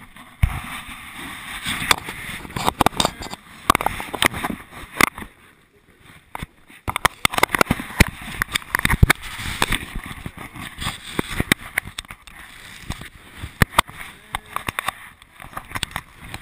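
Rubbing, scraping and irregular knocks on a GoPro worn by a dog as the dog moves, with a short lull about six seconds in.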